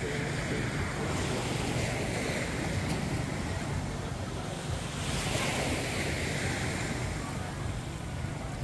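Surf washing onto a sandy beach, a steady hiss that swells twice, with wind buffeting the microphone.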